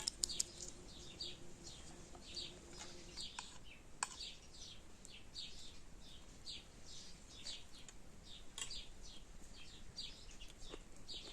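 Small birds chirping over and over, short high chirps that drop in pitch, about two a second.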